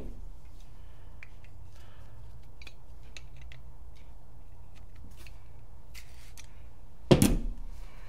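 Handling of a metal Allen key and the paintball marker's aluminium frame: scattered faint small clicks, then one louder sharp knock about seven seconds in, over a steady low hum.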